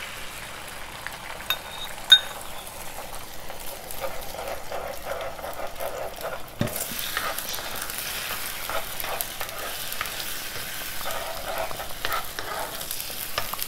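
Beaten eggs sizzling in hot oil in a nonstick frying pan while a fork stirs and scrapes them against the pan, with scattered clicks. A sharp click comes about two seconds in, and the sizzling grows louder from about seven seconds in.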